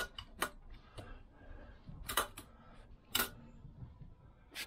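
A handful of sharp clicks and light taps from hands working a Vespa PX engine's piston with a cloth, spread out with pauses between them.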